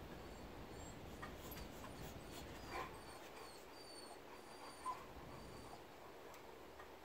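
A dog whining: a faint series of short, high-pitched whines, with a couple of soft knocks in between.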